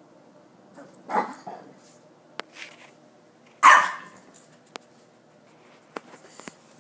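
Small dog barking: a bark about a second in, a softer one after it, and a louder bark about halfway through, followed by a few faint sharp clicks.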